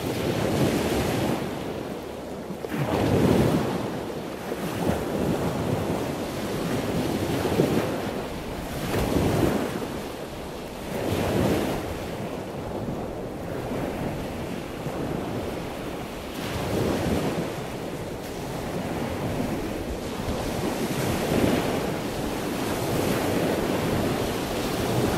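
Wind buffeting the microphone, rising and falling in irregular gusts every second or two.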